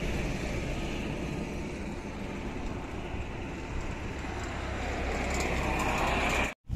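Steady road noise of a vehicle driving along a highway, tyres and engine rumbling, growing a little louder toward the end.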